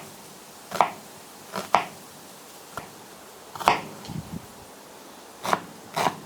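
Knife chopping an onion finely on a chopping board: about seven separate, irregularly spaced strikes of the blade on the board.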